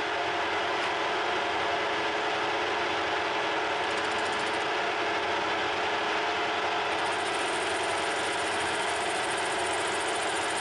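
Metal lathe running with its three-jaw chuck spinning, a steady mechanical drone carrying several constant tones. About seven seconds in a faint high hiss joins it as the facing tool meets the stainless steel billet.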